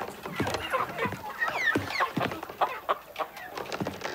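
Several hens clucking in short, overlapping calls, with quick rising and falling pitch.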